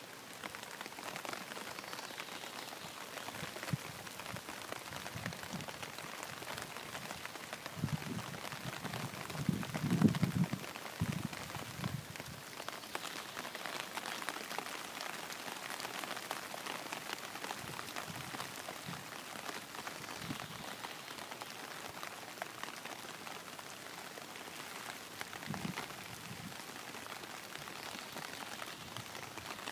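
Steady patter of rain falling on pond water, with a short cluster of low thumps about a third of the way in.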